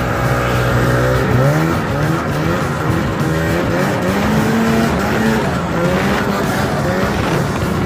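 Snowmobile engine running under way, its pitch rising and falling several times as the throttle is opened and eased off.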